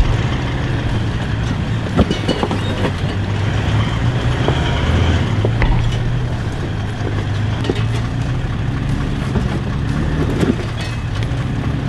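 Toyota off-road truck crawling over rocks: its engine runs steadily with a low hum, with scattered knocks and clunks from the tyres and suspension working over stone.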